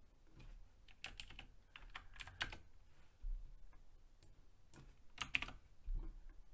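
Typing on a computer keyboard: faint, irregular keystrokes in short quick clusters, with a few duller thuds between them.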